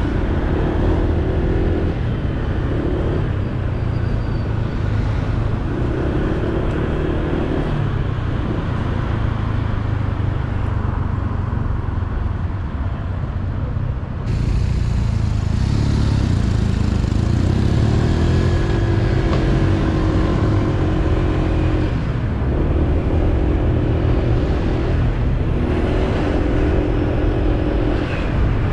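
Honda PCX 125 scooter's single-cylinder engine running under way, its note rising several times as it pulls away and picks up speed, most strongly after about halfway. Heavy wind rumble on the on-board microphone runs under it.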